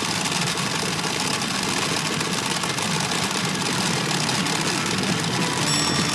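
Pachinko machine in play, a dense, steady clatter of many small steel balls rattling through it.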